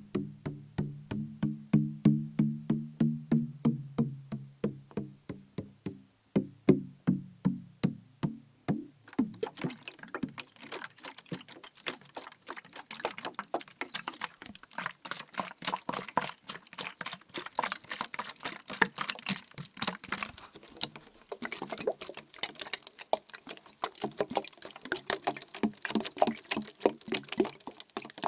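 Liquid-filled plastic bottle being tapped, about three taps a second, each with a low hollow ring. About nine seconds in, the tapping turns faster and sharper.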